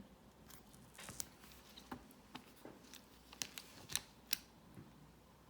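Faint, scattered light clicks and taps, about eight over a few seconds, from hands handling small objects: a breadboard push button and a metal spoon held against a temperature sensor.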